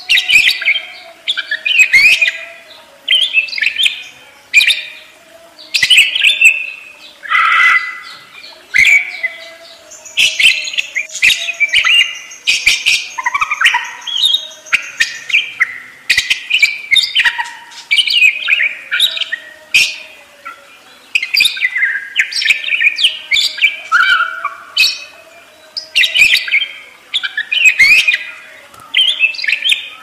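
Budgerigars chattering and warbling: a continuous run of rapid chirps, clicks and squeaky notes, with a thin high note held for several seconds about a third of the way in.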